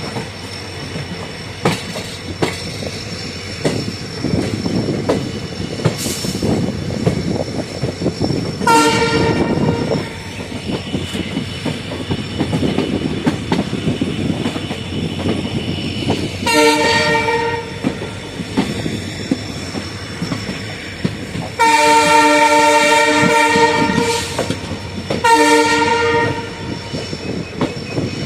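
WDP-4 diesel locomotive's horn sounding four blasts, the third the longest at about two and a half seconds. Between them runs the steady rumble and clickety-clack of the train's wheels on the track, heard from aboard the train.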